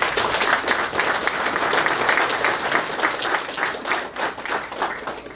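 Audience applauding, a dense mass of handclaps that stops abruptly near the end.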